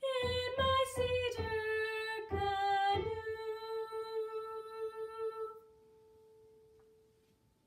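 A girl's voice singing the closing phrase of a song unaccompanied: a few quick notes, then a long final note held for several seconds, hummed with the mouth closed, which fades away.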